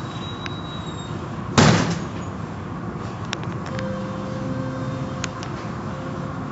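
Automatic car wash tunnel running: a steady rush of water spray and spinning cloth brushes scrubbing a car, heard through the viewing-window glass. A single loud thump comes about a second and a half in.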